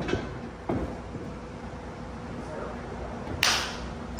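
Footsteps thudding on a wrestling ring's canvas twice, then near the end a sharp clap that rings out in the hall, the first of a run of evenly spaced claps.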